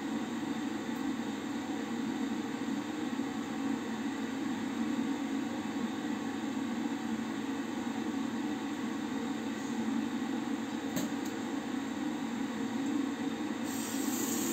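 Bathroom tap left running into a washbasin, a steady rushing noise; near the end a brighter hiss joins as hands go into the stream.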